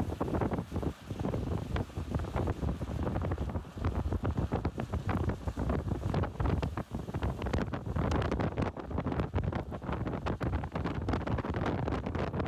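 Wind buffeting the microphone: a low rumble that flutters and surges unevenly.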